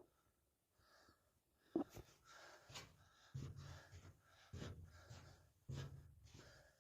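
Footsteps walking slowly down a steep tunnel slope, one soft scuffing step about every second, with a sharp click about two seconds in.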